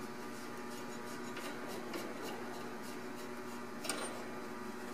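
Faint steady hum of a heavy truck idling, with a few light clicks and rubs as hands work an air hose coupling.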